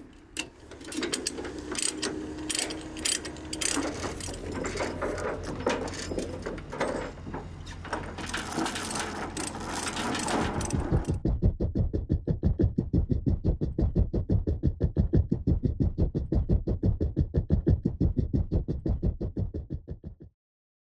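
Ratchet strap being cranked tight, with rapid clicks of the pawl and chain rattling, over a low steady hum. About halfway through, this gives way to louder background music with a fast, even pulse, which cuts off just before the end.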